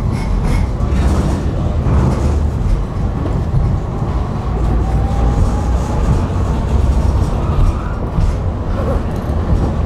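Tram running along its rails, heard from on board: a steady low rumble with occasional knocks, and a faint, slightly rising whine about halfway through.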